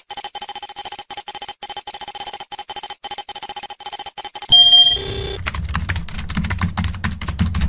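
Intro sound effect for a loading-bar logo animation: a very fast stream of digital clicks over steady high electronic tones, like rapid typing, while the bar fills. About four and a half seconds in it changes to a short electronic chime, then a deep bass tone with fast clicking over it as the logo appears.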